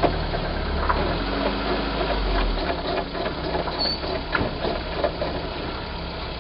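10 mm ratchet clicking as it undoes the nuts that hold the window glass inside a VW camper's door, over a low steady hum.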